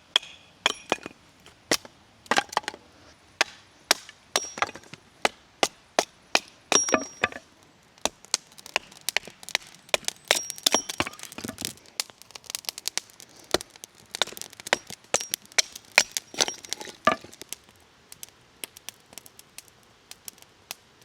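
Wood being chopped into kindling: sharp strikes about twice a second, then a quicker run of lighter cracks and snaps, thinning to a few faint scattered cracks near the end.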